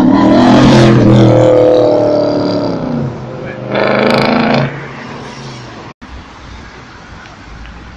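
Red Audi RS4's engine pulling hard as the car accelerates past, its note dropping away over about three seconds, then a second short burst of revs about four seconds in. After a cut at about six seconds there is steady street traffic noise.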